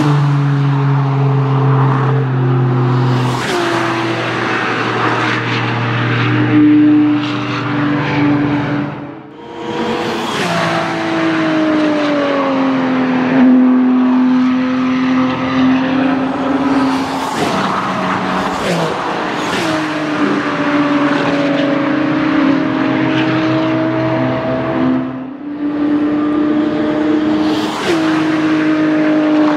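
Sports and race cars passing one after another at full throttle, engines held at high revs with gear changes and each car's note swelling as it goes by. There are two brief lulls, about nine and twenty-five seconds in.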